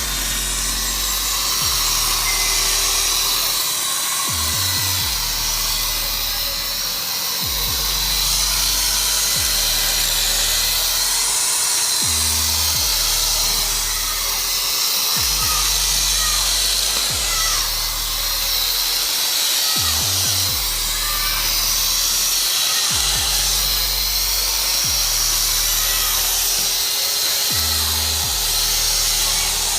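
Background music with a repeating bass line, over the steady whine of an electric drill running with a blade fitted to it for cutting grass.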